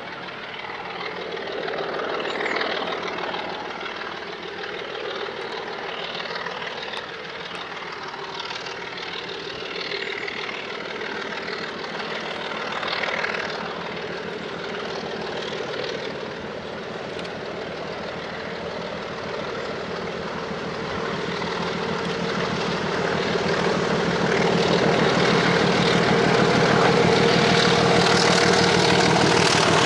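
BR Sulzer Type 2 diesel locomotive's six-cylinder engine working under power as it hauls coaches, a steady drone that grows steadily louder over the last third as the locomotive approaches.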